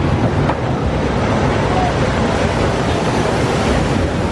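Disneyland Railroad train running along its track, heard from aboard the moving passenger car: a steady low rumble with some wind on the microphone.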